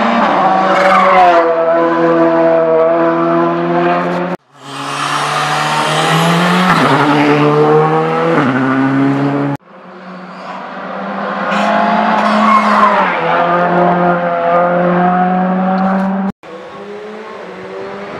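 Rally cars' engines at high revs through a bend, the engine note gliding and stepping as the cars brake and change gear; several separate passes joined by abrupt cuts, the last one quieter and further off.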